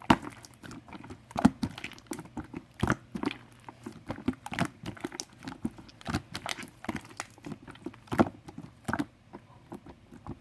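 Hands pressing and poking white slime, making irregular sticky clicks and small pops, a few each second.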